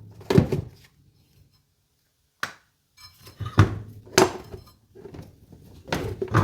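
Scattered knocks and clunks of metal parts as the rear wheel of a Yamaha Majesty 400 scooter is worked out and pulled free, some hits ringing briefly, with a quiet pause after the first second.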